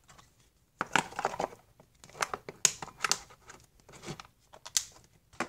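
Plastic rustling and clicking from sports trading cards and a clear plastic storage box being handled and moved, in a string of short, irregular crinkles and light knocks.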